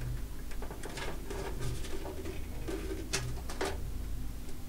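Hands handling a metal-mesh-fronted desktop computer case: a series of light clicks and taps, the sharpest a little after three seconds in, over a steady low hum. A low cooing recurs in the background.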